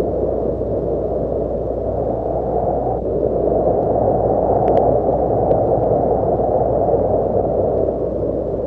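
Wind blowing steadily, a dense low rushing noise with gentle swells in strength.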